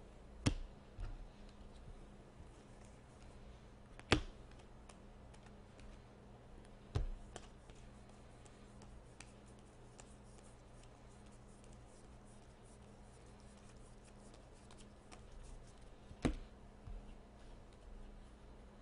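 Trading cards being handled and flipped through by hand: four sharp taps as cards or stacks meet the table, with faint quick flicks of cards sliding past one another between them.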